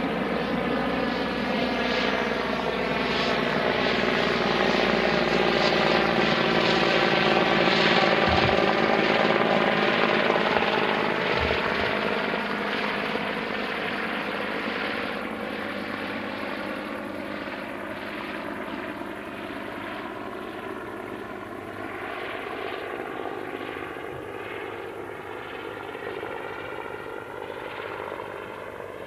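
Mi-24P helicopter's turboshaft engines and rotor flying past. The sound swells to its loudest about eight seconds in, with a tone that sweeps in pitch as it passes, then fades away.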